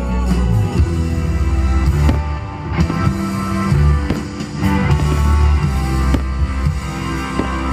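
Rock music with electric guitar over a steady bass line, without singing.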